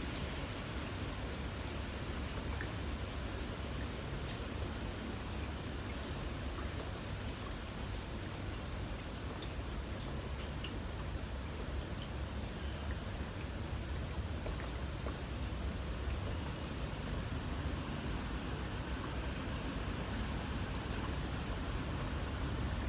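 Light rain falling steadily, with a continuous high-pitched insect trill and a low background rumble underneath.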